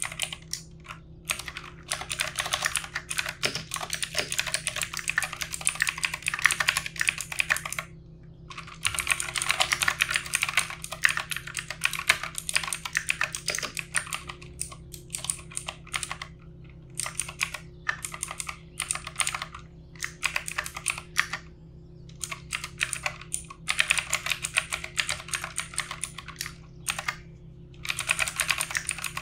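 Fast typing on a backlit computer keyboard: dense runs of key clicks broken by several short pauses of about a second.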